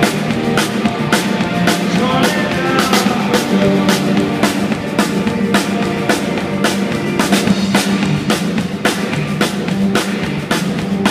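Rock band playing live: electric guitars over a drum kit keeping a steady, even beat.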